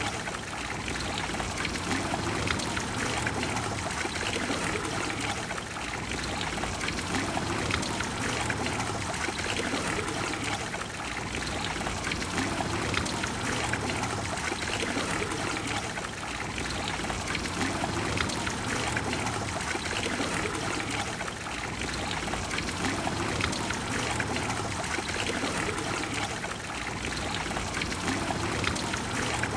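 Trevi Fountain's water splashing and pouring into its basin, a steady rushing that does not change.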